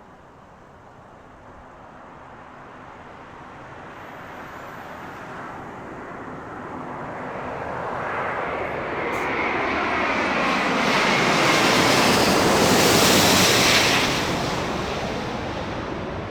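Airbus A350-941 jet airliner on landing approach passing low overhead, its Rolls-Royce Trent XWB engines growing steadily louder, peaking near the end, then falling away quickly as it passes.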